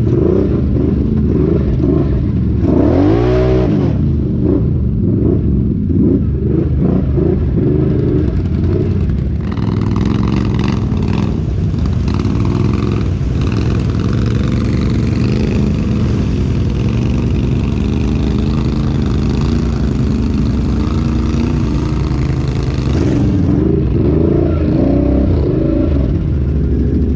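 Off-road vehicle engine running under load and revving, with one quick rise and fall in pitch about three seconds in. From about ten seconds in until a few seconds before the end, a loud rushing noise rides over the engine.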